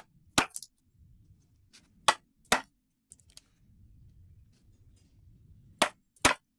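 Sharp knocks of a tool striking wood, coming in three pairs with the two knocks of each pair about half a second apart.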